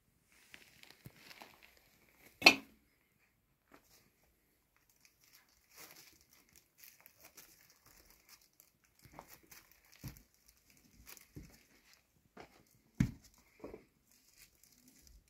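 Rustling, scraping and crinkling of a cat climbing over wood and cardboard into a cardboard-box nest, with scattered knocks. A sharp knock about two and a half seconds in and a heavier thump near thirteen seconds are the loudest.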